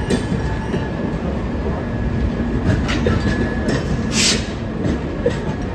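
Indian Railways LHB passenger coaches rolling slowly past: a steady rumble of wheels on the rails with a few sharp clicks. A short hiss about four seconds in.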